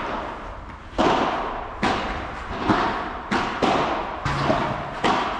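A padel rally: rackets striking the ball again and again with sharp pops, about one hit a second, each echoing briefly in the large tent hall.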